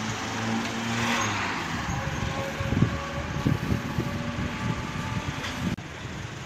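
A motor vehicle's engine running in street traffic: a steady low hum for the first second or so, then an uneven low rumble.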